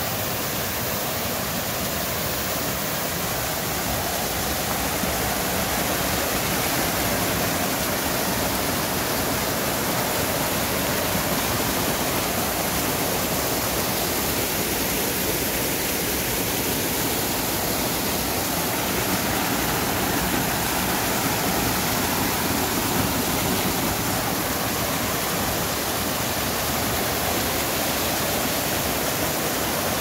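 Mountain stream spilling over rocks in small waterfalls into pools: a steady, unbroken rush of water.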